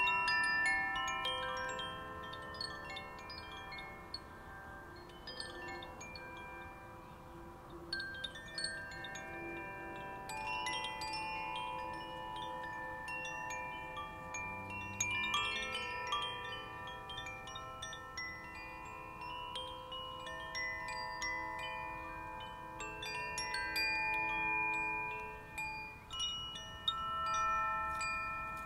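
Koshi chimes being swung, the clapper striking the tuned rods in irregular clusters, so that many bright, ringing tones overlap and die away.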